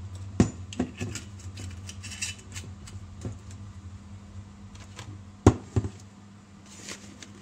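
A few sharp knocks and clinks of a spoon and bottles being handled and set down on a kitchen worktop. Two louder knocks come about half a second in and again about five and a half seconds in, over a steady low hum.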